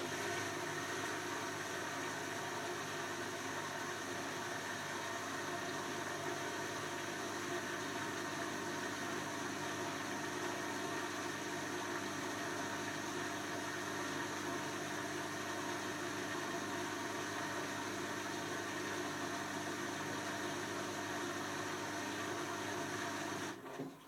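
Beko WM5100S front-loading washing machine running with a steady mechanical hum, which stops near the end.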